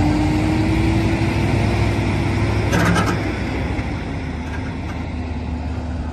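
Heavy truck's diesel engine running under load as it hauls a loaded low-loader trailer, its pitch rising slowly over the first three seconds. A brief clatter comes about three seconds in, after which the engine runs steadier and a little quieter.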